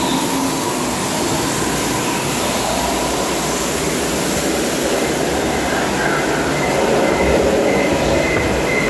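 Amusement ride vehicle running along its track through a dark tunnel: a steady, loud rumbling noise, with a faint high squeal coming and going in the second half.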